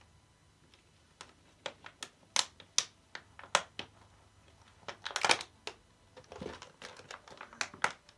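Plastic water bottle crackling and clicking in irregular bursts as a kitten bats and bites at it, with a denser flurry about five seconds in.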